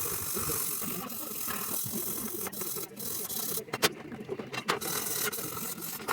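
Irregular sharp clicks and light rattling of small hard parts over a steady hiss, as from handling the parts and switches of an amplifier on the workbench.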